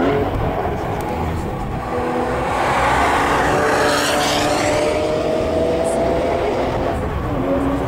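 Cars on a race track driving through a bend: a BMW M4 and an E36 BMW 3 Series pass close, their engine notes rising steadily as they accelerate. The loudest pass comes about four seconds in.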